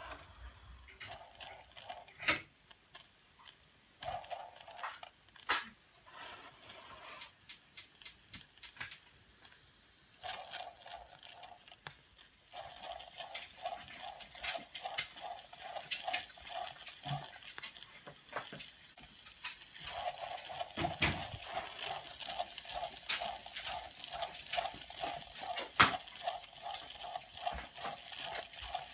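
Antique Bing toy steam engine running under steam: a quick, steady rhythmic chuffing over a sputtering steam hiss. Scattered clicks and a few sharp knocks come before the chuffing settles in about ten seconds in, and it grows louder later on.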